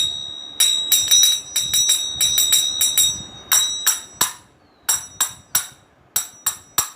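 A pair of manjira (small hand cymbals) clashed together again and again, each strike ringing bright and high. The strikes come in quick uneven runs at first, then more spaced out.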